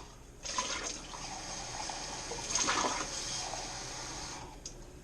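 Water running with a rushing hiss. It starts about half a second in, swells around the middle and stops near the end.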